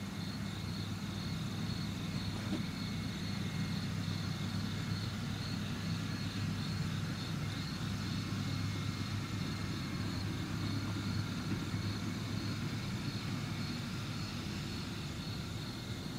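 Steady low hum of a road vehicle driving, heard from inside, with a faint high whine running through it.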